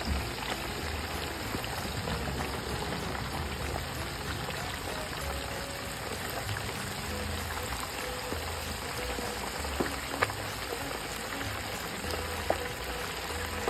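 Whole turkey deep-frying in a pot of hot oil, the oil bubbling and crackling steadily, with a few sharper pops near the end.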